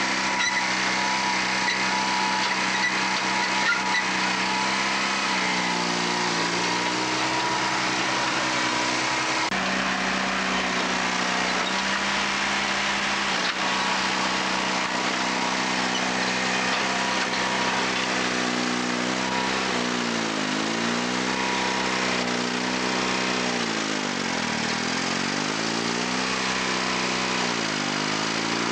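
1956 Allis-Chalmers HD-5 crawler loader's Detroit Diesel 2-71 two-stroke engine running hard. Its pitch sags and recovers about four times as it lugs down under load with the bucket pushing into the dirt bank.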